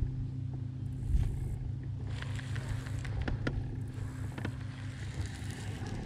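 A boat motor running with a steady low hum, with a few light clicks from a baitcasting reel being handled, cast and reeled.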